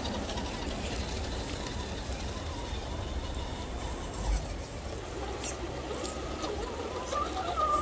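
Electric motor and gears of a small RC rock crawler whining as it drives, over the rush of a shallow stream.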